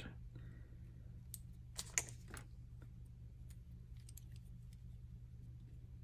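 Faint scattered clicks and taps of a Leatherman FREE multitool and its nylon comb blade being handled and bent straight, with a few sharper clicks about two seconds in, over a low steady hum.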